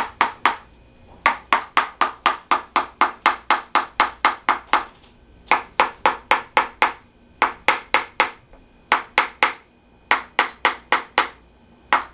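Rapid percussive tapping massage on a patient's body: sharp strikes at about five a second, in runs of one to three seconds with short pauses between, the longest run about three and a half seconds.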